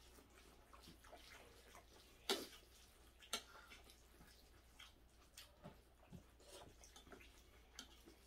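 Faint sounds of eating with chopsticks: scattered light clicks of chopsticks against the plates, the sharpest about two seconds in and another about a second later, with quiet wet chewing between.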